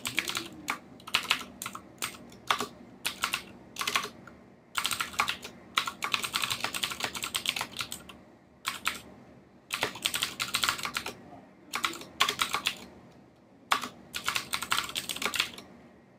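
Typing on a computer keyboard: quick runs of keystrokes in bursts, with brief pauses between them.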